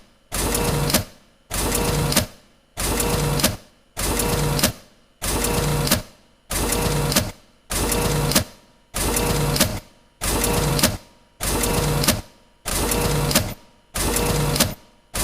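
Photocopier running off copies one sheet after another: a mechanical run-and-stop cycle about every second and a quarter, each cycle under a second long with a steady hum in it.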